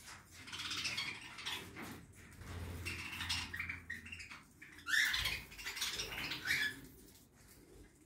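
Budgerigars pecking and husking seed at a feeder: a patter of small dry clicks, mixed with short budgie chirps, the loudest of them about five seconds in.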